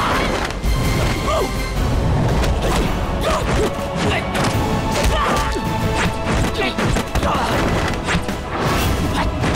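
Dramatic action music under a martial-arts fight, with a rapid series of punch and kick impact hits.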